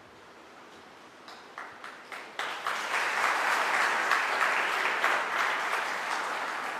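Audience applauding: a few scattered claps about a second in, swelling into full, steady applause from about two and a half seconds.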